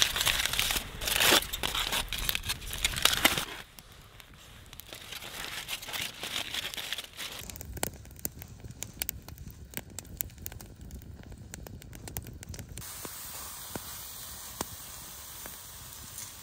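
Aluminium foil crinkling loudly as a foil-wrapped packet is handled for about the first three and a half seconds. Then a steak sizzles in a frying pan over a wood fire, with many fine crackles and a steady hiss.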